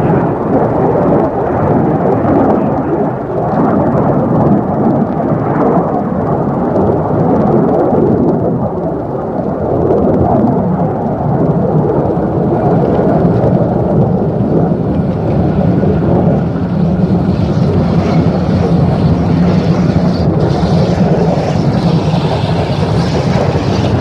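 A steady aircraft roar, loud throughout, overlays an approaching steam locomotive working a train. The locomotive comes through more plainly in the last third as it nears.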